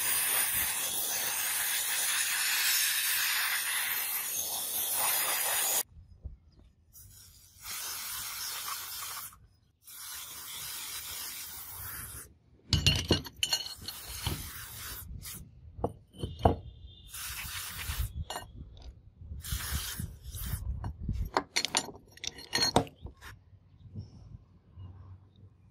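A long hiss, then two shorter bursts of aerosol spray hissing from a can onto hydraulic jack cylinder parts. From about halfway, steel jack parts clink, knock and scrape on concrete as they are handled, in many short separate strikes.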